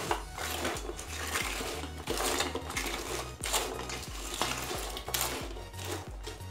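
Crisp fried diamond cuts, freshly glazed with sugar syrup, tossed and stirred in a steel bowl: a dry rustle with repeated scrapes and knocks against the bowl. Background music with a low bass line runs underneath.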